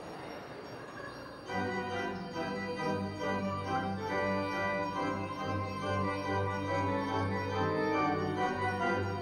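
A pipe organ plays full sustained chords over a held low pedal note, coming in suddenly about a second and a half in after a short soft noise.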